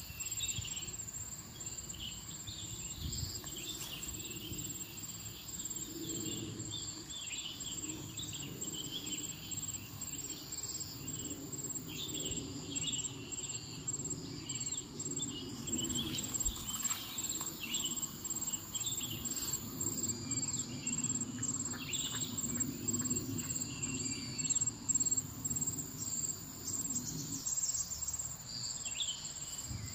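Insects trilling steadily in a high, pulsing tone, with birds chirping and calling on and off, over a low steady hum.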